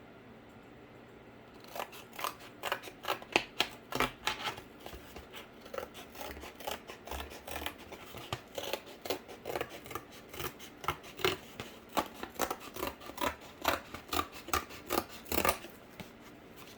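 Scissors cutting cardboard in a long run of quick snips, about three a second, starting a couple of seconds in and stopping just before the end.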